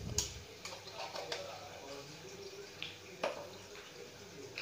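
Sugar syrup simmering in a metal pot, faint bubbling with a few small clicks and ticks, the sharpest about three seconds in.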